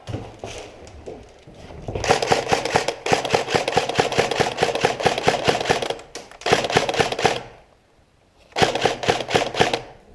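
Automatic gun firing in four bursts of rapid shots, the longest about three seconds.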